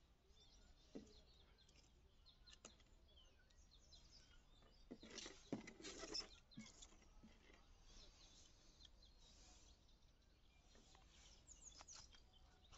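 Near silence with a few faint clicks and rustles, including a short cluster about five to six seconds in, from pruning shears snipping blackberry cane cuttings and the cut pieces being handled on a board.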